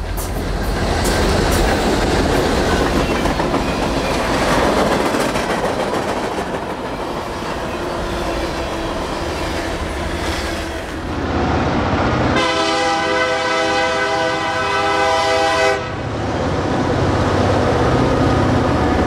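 A BNSF diesel freight train passing, with steady rumbling and clattering wheels. About twelve seconds in, the locomotive's air horn sounds one long blast of about three seconds on a chord of several tones.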